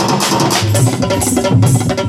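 Live band-party music: an electronic keyboard bass line with tabla and dholak drumming a steady beat.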